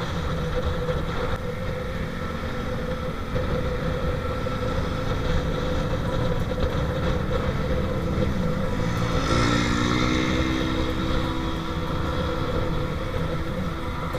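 Motorcycle on the move: the engine running with a steady low rush of wind and road noise. The engine note climbs in pitch about nine seconds in, then holds.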